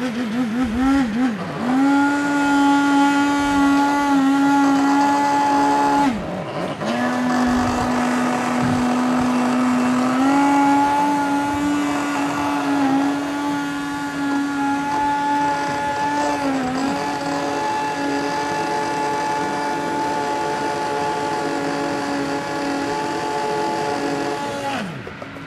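Electric stick (immersion) blender running in a steel pot, puréeing chestnut soup into a froth. Its motor hum holds a steady pitch that dips and shifts slightly with the load. It cuts out briefly about six seconds in, restarts, and stops just before the end.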